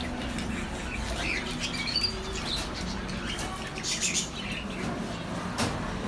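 Pigeons' wings flapping in short bursts as the birds are handled, with small caged birds chirping now and then and a single knock near the end.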